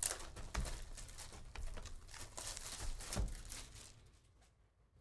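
Plastic shrink wrap crinkling and tearing as it is pulled off a sealed trading card hobby box: irregular crackling that dies away in the last second or so.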